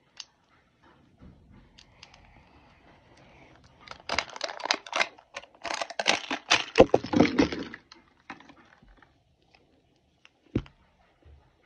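Plastic wrapper being peeled and torn off a Mini Brands capsule ball: a dense run of crinkling crackles for about four seconds. A single sharp click of the hard plastic ball being handled comes near the end.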